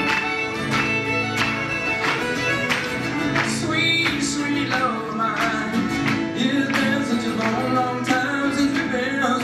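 Acoustic guitar strummed in a steady beat, with a fiddle playing a sliding melody over it.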